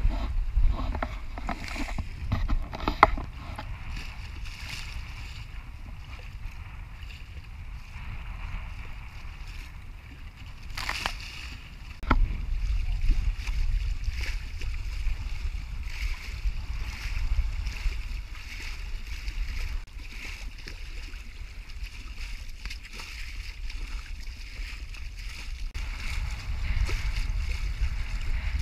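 Wind buffeting the microphone and water rushing and splashing along the hull of a small sailing dinghy under sail in choppy water. The wind noise gets louder about twelve seconds in.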